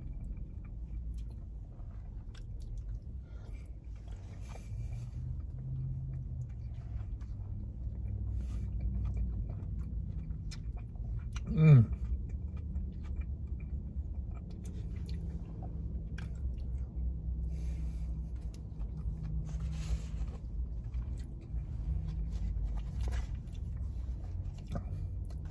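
A man chewing food with his mouth, with small clicks and scrapes of a plastic fork in a bowl, over a steady low rumble inside a car. About halfway through there is one short voiced sound, like a hum, which is the loudest moment.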